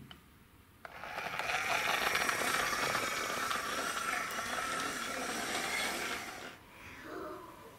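Plastic toy truck rolling across a wooden floor, a continuous rattling whir of its plastic wheels that starts abruptly about a second in and stops at about six and a half seconds.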